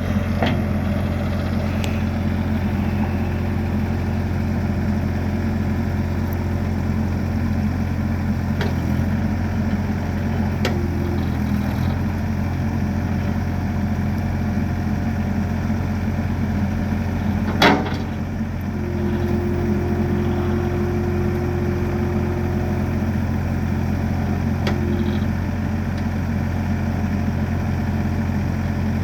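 Perkins 1.4-litre three-cylinder diesel of an ASV RT30 tracked loader idling steadily, with a few sharp clicks over it, the loudest about two-thirds of the way through.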